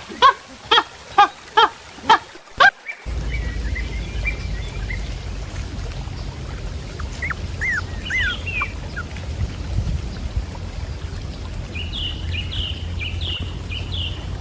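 A rapid series of loud pitched animal calls, about four a second, that stops about three seconds in. Then a steady low outdoor rumble with scattered short bird chirps.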